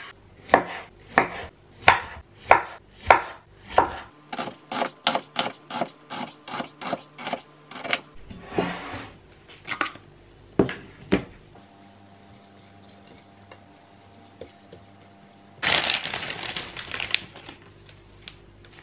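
Kitchen knife slicing tomatoes on a wooden cutting board: even strokes a little under two a second, then quicker chopping at about three a second, then a few scattered knocks. Near the end a plastic bag of spinach rustles briefly.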